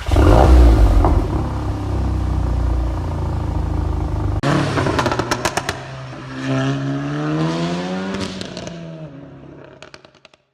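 Car engine and exhaust: a loud burst of revs that settles to a steady fast idle, then after a cut a long rise in revs with sharp crackles from the exhaust.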